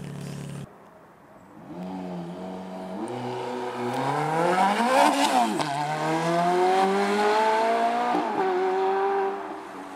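Supercar engine accelerating hard through the gears, the revs climbing and dropping back at upshifts about three, six and eight seconds in. It is loudest about halfway through, where it passes close by.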